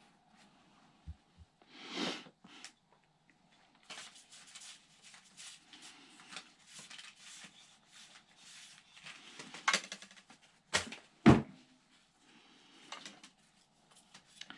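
Handling noises of a towel being picked up and rubbed over a cork rod grip: cloth rustling on and off, with a few sharp knocks around ten to eleven seconds in, the last of them the loudest.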